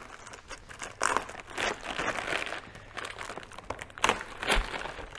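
Waxed paper wrapping around a machine vise crinkling and rustling in irregular bursts as it is handled, with a dull knock near the end.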